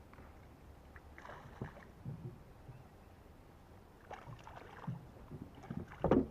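Water splashing and knocking against a small fishing boat: a few short, irregular splashes and bumps, the loudest a thump near the end.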